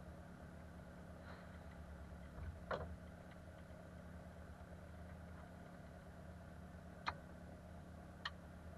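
Small plane's piston engine idling, a steady low drone heard muffled inside the closed cockpit. Three sharp clicks from the cockpit come about three, seven and eight seconds in.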